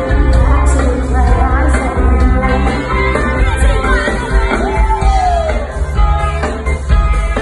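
A song playing: a singing voice over a band with heavy bass.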